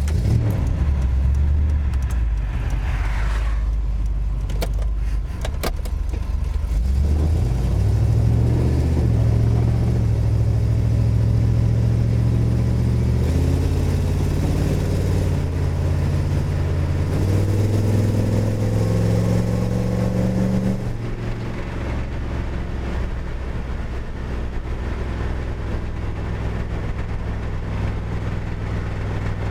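Small-block Chevy V8 running, its pitch holding steady and then stepping up and down several times, quieter in the last third. A light ticking is present that the owner puts down to excessive rod and main bearing wear.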